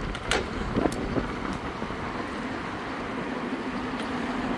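Riding noise from an electric mountain bike cruising at about 13 mph: steady wind and road rumble, with a few light clicks in the first second and a faint steady hum in the second half.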